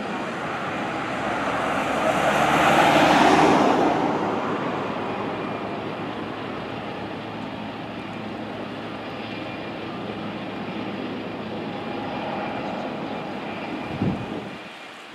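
Distant jet engine noise from a twin-engine Boeing 757-300 airliner on final approach. It swells loudest about three seconds in, then runs steadily, with a brief thump near the end.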